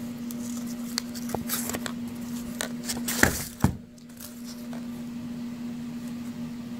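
Small cardboard box of .22 LR cartridges being worked out of its carton and handled: light scraping and small clicks, with two sharper knocks a little over three seconds in, over a steady low hum.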